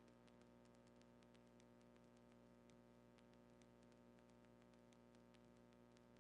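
Near silence: a faint steady electrical hum and hiss with scattered faint ticks.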